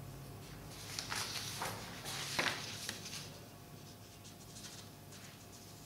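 Paper rustling and sliding as sheets are handled and swapped, a few soft scrapes between about one and three seconds in, then faint room tone.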